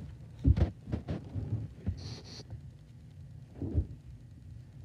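Dull low thumps from movement on a mattress, several in the first second and one more a little before the four-second mark. A brief soft swish of a playing card being laid down comes about two seconds in.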